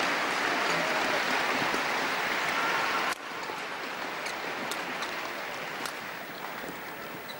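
Arena crowd noise, an even hiss of applause and chatter, that drops abruptly about three seconds in. Through the quieter part a few sharp clicks of rackets striking the shuttlecock come through.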